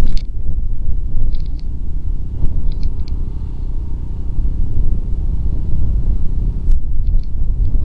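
Wind buffeting the microphone as a loud, uneven low rumble, with a few faint ticks.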